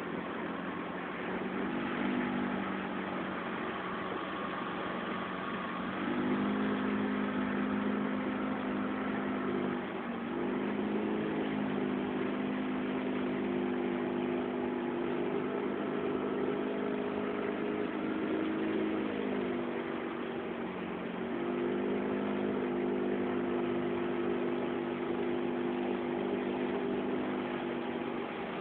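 Motorboat engine running with a steady hum over a hiss of water and wind. The engine speed drops briefly about ten seconds in, eases down again around twenty seconds and picks back up.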